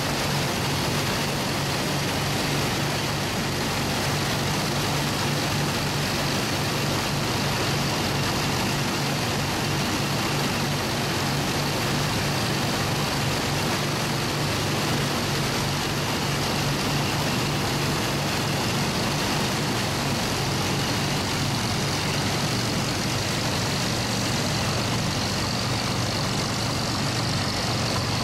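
Vintage Allis-Chalmers All-Crop self-propelled combine harvesting wheat: its engine and threshing machinery running steadily at a constant low hum with a wide mechanical rush over it.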